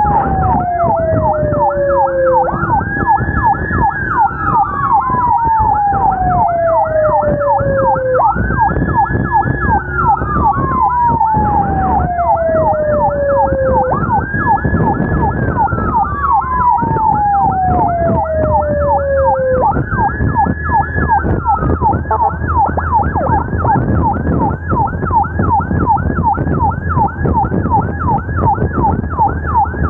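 Two emergency sirens sounding together from a police escort and ambulances on the move. A fast yelp sweeps up and down several times a second throughout. A slow wail climbs, holds, then falls over about five seconds, repeats about every six seconds, and stops about two-thirds of the way through. Beneath them is the low running of the motorcycle's engine.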